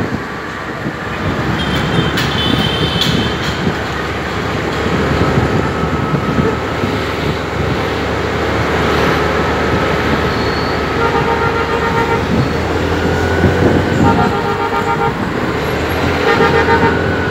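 City road traffic heard from a moving motorcycle: a steady low engine drone and rushing noise, cut by vehicle horns. A short high toot comes about two seconds in, and pulsing horn blasts sound several times in the second half.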